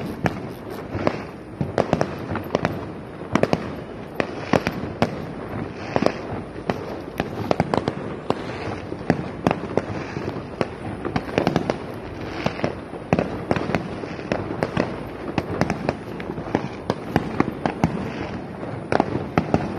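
Fireworks and firecrackers going off in an irregular, rapid series of sharp bangs, several a second.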